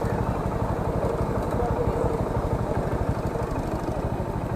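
Motorcycle engine running with a steady, rapid low pulsing of its firing.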